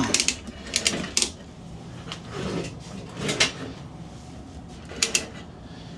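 Retractable ratchet strap being cranked tight: short runs of sharp ratchet clicks in the first second, then a couple more clicks at a time around three seconds and again around five seconds, with pauses between.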